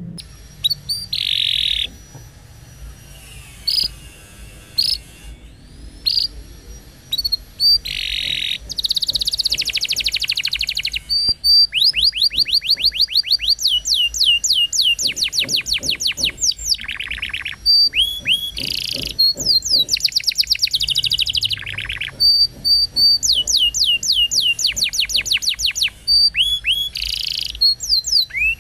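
Canary singing a long, varied song. It starts with scattered single chirps, then from about a third of the way in runs into long fast trills of rapidly repeated whistled notes, broken by short buzzy bursts.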